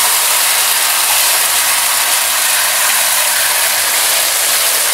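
Chili-and-ketchup sauce sizzling steadily in hot oil in a black iron wok, stirred slowly with a wooden spoon.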